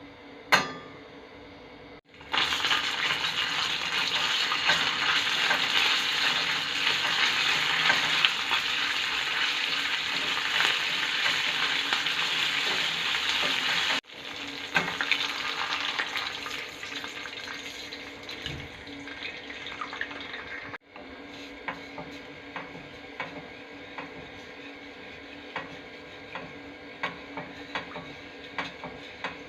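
Sauce frying and sizzling in a pan while it is stirred, with a spoon clicking against the pan. The sizzle is loudest for the first dozen seconds, then softer, with scattered clicks.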